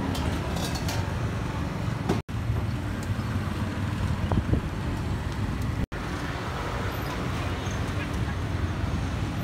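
Outdoor street ambience: a steady low rumble of passing traffic with indistinct voices, broken twice by a split-second dropout.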